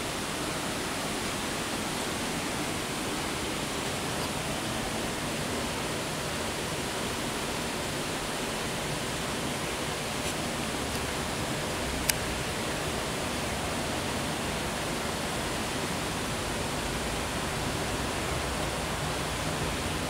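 Steady rush of running water, even and unbroken, with one sharp click about twelve seconds in.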